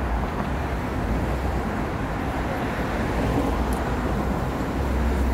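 Steady city road traffic: a continuous low rumble and hiss of passing vehicles, growing a little louder near the end.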